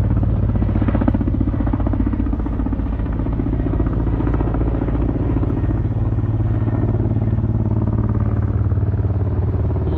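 Ka-52 'Alligator' attack helicopter flying past low: a steady, rapid beat of its coaxial rotors over the engine hum.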